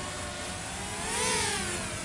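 Walkera F210 racing quadcopter flying overhead, its four brushless motors and propellers giving a steady whine. About a second in, the whine swells and rises in pitch, then falls back.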